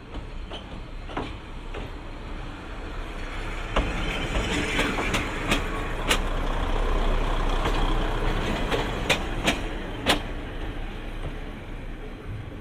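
Kominato Railway KiHa 200-series diesel railcar (KiHa 211) rolling slowly past during shunting, its diesel engine running. A run of sharp wheel clicks over rail joints and points comes as it passes close, loudest in the middle, then it fades as the car moves away.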